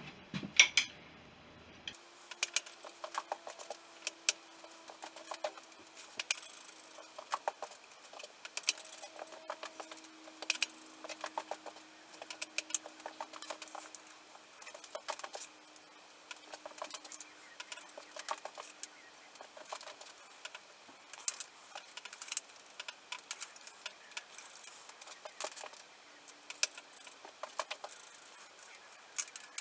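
Hand tools clicking and clinking on metal parts of a Honda CB350 motorcycle being dismantled, with many irregular sharp metallic clicks.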